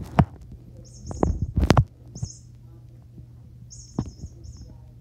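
A cat playing with a toy mouse on carpet: several dull thumps, the heaviest in the first two seconds, with short high chirps in quick runs a few times over a steady low hum.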